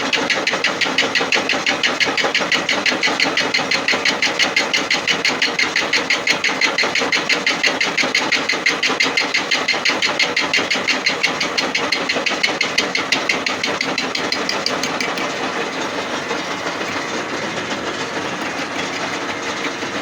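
Lathe facing a cast-iron bar with a cutting tool under power feed at 355 rpm. The cut is interrupted, so the tool knocks into the bar about six times a second, once per spindle revolution. The knocking eases off in the last few seconds.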